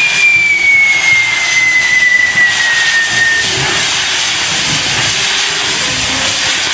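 Castillo firework wheel spinning and burning: a loud steady hiss from its fountains. A whistle falls slowly in pitch and stops about halfway through.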